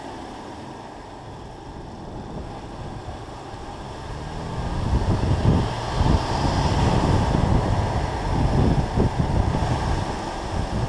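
BMW M2 Competition's twin-turbo straight-six and tyres running on the road, under heavy wind buffeting on the microphone. It gets louder about four seconds in as the car picks up speed.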